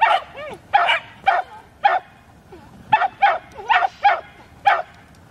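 A dog barking repeatedly in short, sharp barks, about ten of them at an uneven pace.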